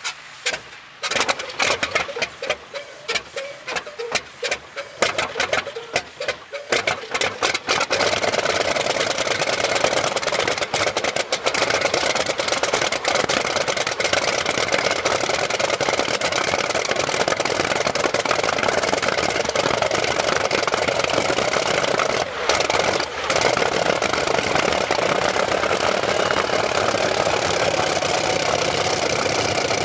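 Kamov Ka-26 helicopter's Vedeneyev M-14V-26 nine-cylinder radial piston engine cold-starting hard on compressed air. For about the first seven seconds it fires in uneven separate strokes, then it catches and runs steadily.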